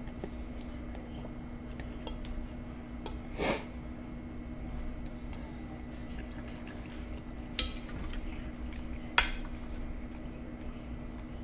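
Metal fork clinking and scraping on a white plate while cutting into saucy deep-dish pizza: a short scrape about three and a half seconds in, then two sharp clinks a second and a half apart near the end, the second the loudest. A steady low hum runs underneath.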